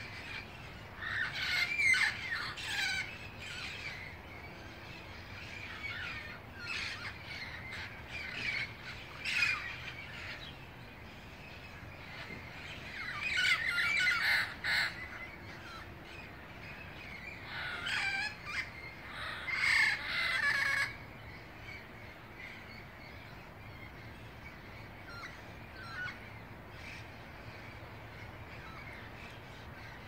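Parrots calling in several loud bursts of repeated calls during the first twenty seconds, then falling mostly quiet with one faint call later.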